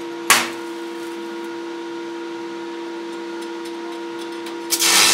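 Manual arc (stick electrode) welding on a broken crankshaft: the welding machine hums steadily, the electrode gives a brief sharp crack as it touches about a third of a second in, and near the end the arc strikes and runs with a loud, continuous crackling hiss.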